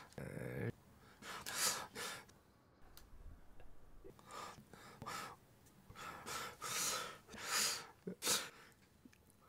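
A man's breathy exhalations and gasps, a series of short puffs of air with no words between them.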